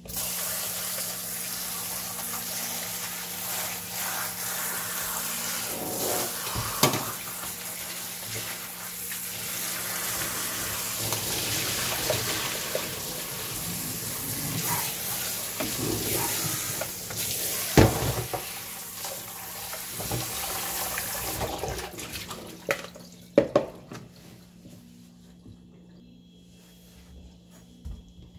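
Kitchen tap running into a stainless steel sink as cabbage pieces are rinsed in a mesh strainer, with a few sharp knocks, the loudest about two thirds in. The water shuts off about three quarters of the way through, and a few more knocks follow.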